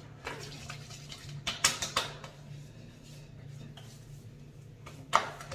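Small plastic skincare containers knocking and clicking as they are handled and set down: a cluster of sharp knocks about one and a half to two seconds in and one loud knock near the end, over a steady low hum.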